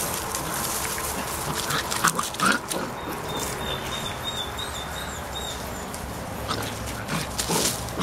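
Vizsla × French Pointer cross puppies playing, with two short yelps about two seconds in and another near the end, over rustling of paws in dry leaves and litter.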